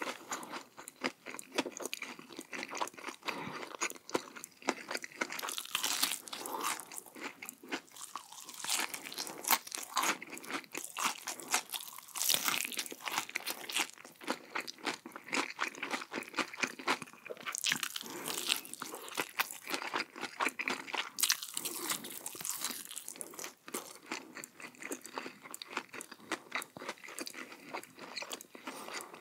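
A person biting and chewing crunchy food close to the microphone, with dense, irregular crackling crunches throughout.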